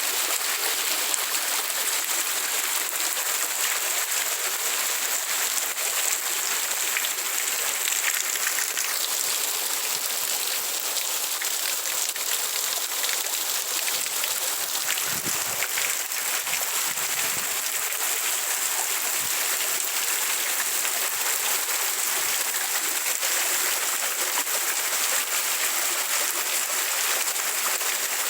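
Heavy rain falling steadily, a continuous even hiss of water.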